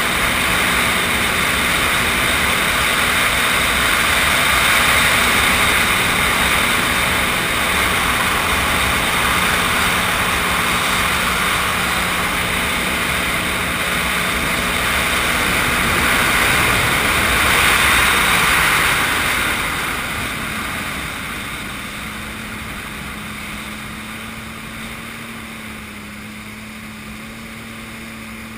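Sea-Doo GTI SE personal watercraft running steadily at cruising speed, its engine note under a loud rush of water and air. About two-thirds of the way through the throttle eases off: the rush fades and the engine settles to a quieter, steady hum as the craft slows.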